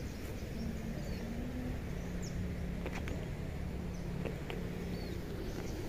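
Outdoor park ambience: a steady low hum with a few faint, short high bird chirps and light clicks.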